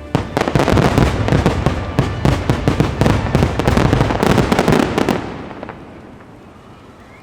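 Fireworks display firing a dense, rapid barrage of bangs that starts suddenly, runs about five seconds, then fades into a rolling echo.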